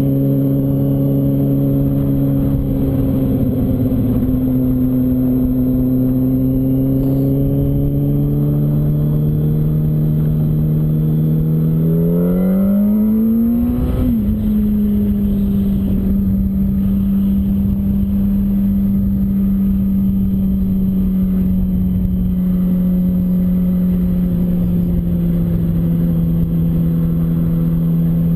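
Yamaha R1's inline-four engine running at steady revs under a rush of wind. A bit before halfway it revs up sharply, then drops suddenly at an upshift, and it settles into a steady, slightly lower note that eases off gradually toward the end.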